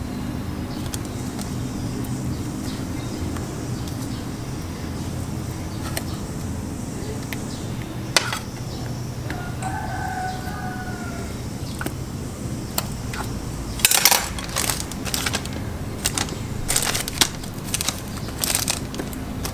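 A steady low hum, with a rooster crowing once, faintly, about ten seconds in. From about fourteen seconds on, a run of clicks and crinkles from hands handling kitchen things, likely the plastic bag for the garlic.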